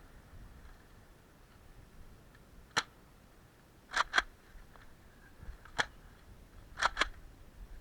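Sharp mechanical clicks from a Nerf blaster being handled: a single click, a quick double click, another single, then another quick double, like a priming slide pulled back and pushed forward.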